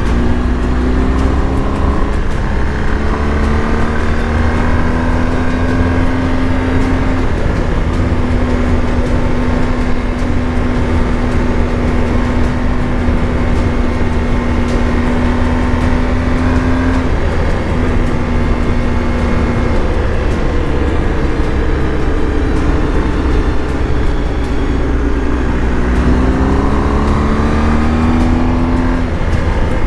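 BMW R 1250 GS Adventure's boxer-twin engine under way: it rises in pitch as it accelerates at first, then holds a steady note at cruising speed, and near the end climbs again before stepping down at a gear change, over a constant low rumble.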